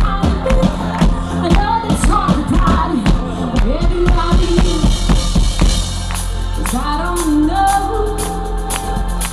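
Live band music: a woman singing into a microphone over a drum kit and electric guitar, with steady drum hits. In the second half she holds long notes.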